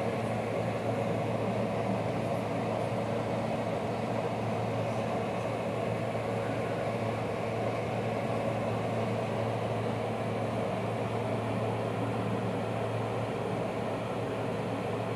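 Steady low mechanical hum with a constant low tone under an even rush of noise, unchanging throughout.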